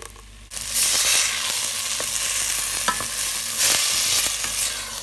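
Loud sizzling of a liquid puréed sauce poured into a hot pot of chickpeas frying in oil and spices. The sizzle starts suddenly about half a second in, with a few small pops and clicks, and eases off near the end.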